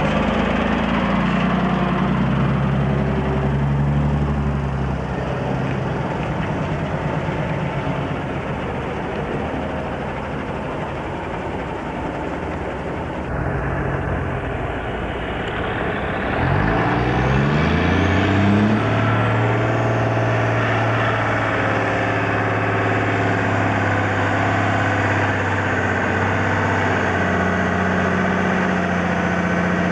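Heavy diesel trucks on a highway. First a truck and trailer runs close by with engine and tyre noise. About halfway through, a loaded logging truck's diesel engine rises in pitch over a couple of seconds as it pulls, then holds a steady note and grows louder as the truck approaches.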